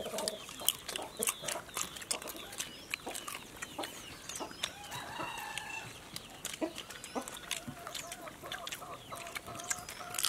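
Chickens clucking, with scattered high chirps and many short sharp ticks.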